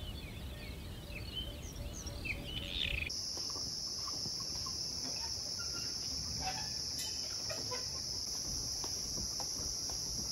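Rainforest ambience: birds chirping and calling for about three seconds, then after a sudden cut a steady, high-pitched insect drone takes over.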